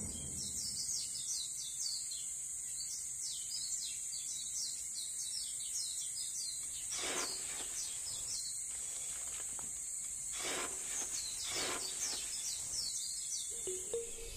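Steady high insect drone with many quick bird chirps over it. From about seven seconds in, a series of short scrapes as the tip of a miniature metal shovel is dragged through dry, sandy soil.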